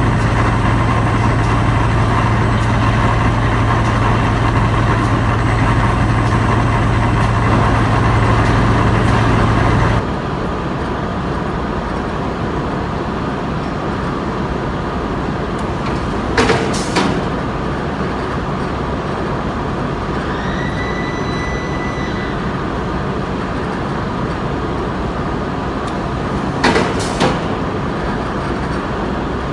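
Felt factory machinery running with a loud steady hum from the carding machine. About ten seconds in, it gives way to a quieter hum from the felt cutting machine. That part has two sharp double clanks about ten seconds apart, with a short high tone between them.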